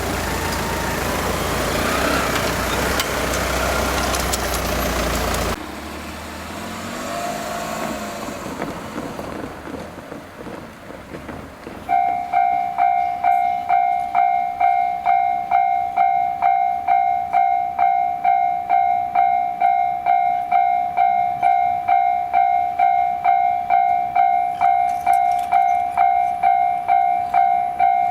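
A passing train rushes by for the first five seconds and cuts off suddenly. About twelve seconds in, the level crossing's electronic warning bell starts ringing, a loud, even two-tone ding at about two strikes a second, and keeps going.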